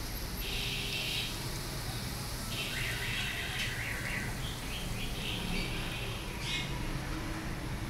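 Birds chirping in several short bursts of quick calls, over a low steady hum.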